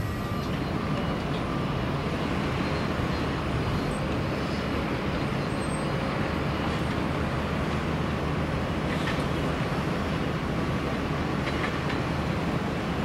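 Steady airport apron background noise: a continuous low machinery drone with an even hiss over it and no change in level.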